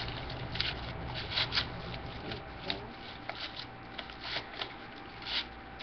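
Ribbon being handled and tied into a bow: short, irregular rustles and scrapes, a few sharper ones among them.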